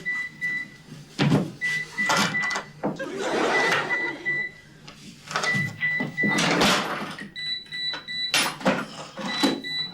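Electronic alarm clock beeping: short groups of high beeps repeating about every two seconds, the beep pitch jumping higher about three quarters of the way through. Bursts of rustling and knocking noise come in between.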